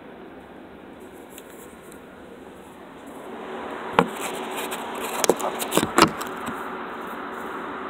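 Steady background hiss in a car cabin, rising a little partway through, with a cluster of sharp clicks and knocks in the middle as the phone is handled and tilted up toward the sunroof.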